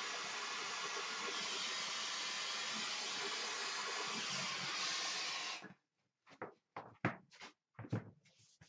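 Acetylene brazing torch flame hissing steadily on copper refrigerant tubing, shut off abruptly a little under six seconds in. After it come a handful of short knocks and clicks as the tubing and tools are handled.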